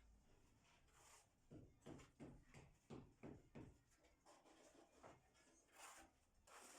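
Near silence, broken by a faint run of about six short scraping strokes starting about a second and a half in, and two brief hissing scrapes near the end.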